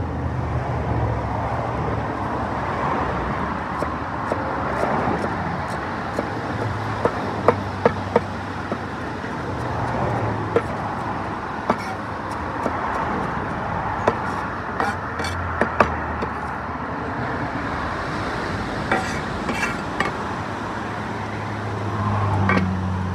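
Knife chopping herbs on a wooden cutting board: scattered sharp knocks of the blade striking the board, in short bursts. Underneath is a steady outdoor background rumble and hiss.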